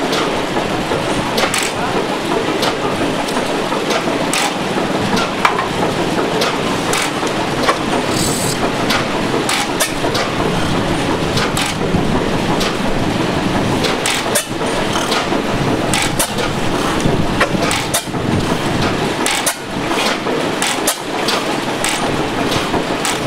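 Antique stationary gas engines running, sharp exhaust pops coming irregularly about once a second over a steady mechanical din.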